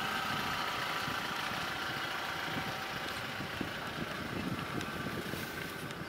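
Steady hum of an idling engine, with soft irregular crunching and chewing from a hippo feeding on an impala carcass.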